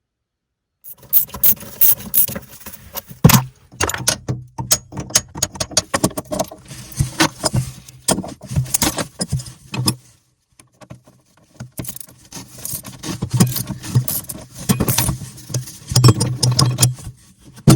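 Impact driver hammering at stuck, rusted chain-plate bolts: a rapid metallic rattle over a steady motor hum, in two long runs with a short pause midway.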